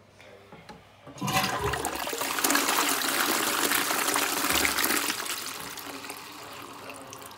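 Ideal Standard toilet giving its little (reduced) flush. The water rushes in suddenly about a second in, swirls down the bowl for a few seconds, then gradually dies down.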